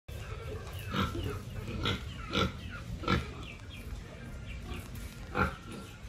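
A pig grunting, about five short grunts spread across a few seconds.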